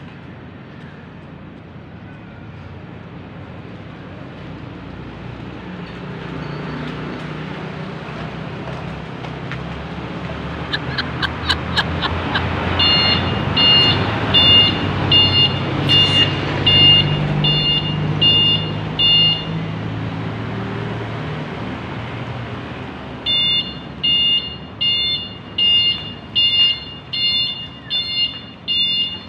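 Electric tricycle's electronic beeper sounding short high multi-tone beeps, about one and a half a second, in two runs: one from about thirteen seconds in lasting some six seconds, another starting about twenty-three seconds in and still going at the end. A quick run of clicks comes just before the first run.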